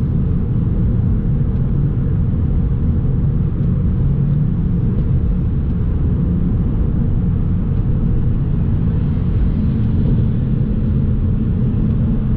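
Steady low rumble of engine and road noise heard inside the cabin of a BMW E92 335i with its twin-turbo N54 straight-six, cruising at a constant speed with no revving or gear changes.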